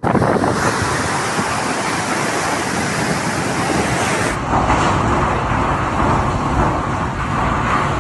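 Storm wind and rain from a tropical cyclone, a loud, steady rush of noise with no let-up, with an abrupt change to a second recording about four seconds in.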